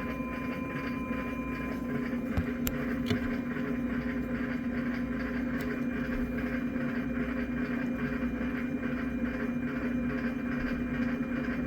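Maytag MVW7232HW top-load washer running with a steady mechanical hum and drone, with a couple of faint clicks about two and a half and three seconds in. It is an abnormal running noise that has come back even after the washer's slider and rotor were replaced.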